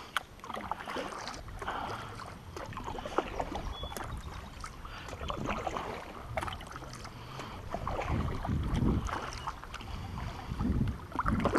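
Double-bladed kayak paddle dipping and pulling through calm river water, with irregular splashes and drips off the blades. Low wind gusts buffet the head-mounted microphone now and then.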